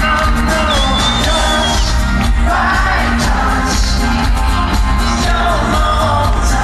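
Live pop band performance: a male singer singing into a microphone over electronic backing with a strong, steady bass beat, heard loud through the hall's PA.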